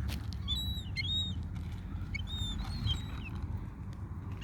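Gulls calling: a few short, high, bending cries, a cluster about half a second in and more around two seconds, over a steady low rumble.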